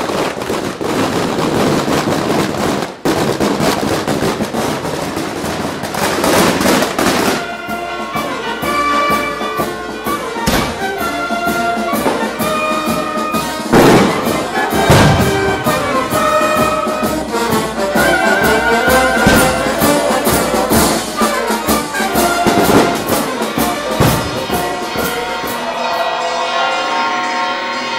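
Fireworks crackling and hissing for the first several seconds, then a street brass band playing, with bass drum strokes and sharp bangs now and then.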